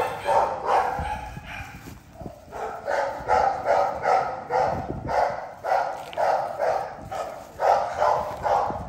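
A dog barking over and over in a steady rhythm, about two to three barks a second, with a short break about two seconds in.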